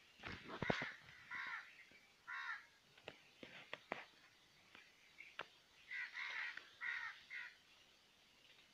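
Crows cawing: about half a dozen short caws, a few in the first seconds and a cluster of three near the end, with a few sharp clicks in between.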